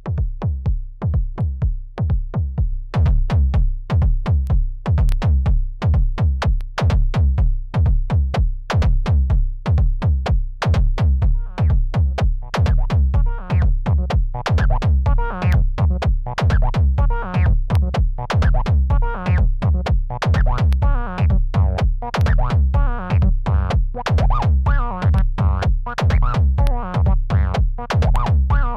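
Electronic jam with a Korg Volca Kick analogue kick drum playing a steady, even beat and a Korg Volca NuBass acid bass line that comes in and grows brighter from about ten seconds in. It fades up over the first few seconds.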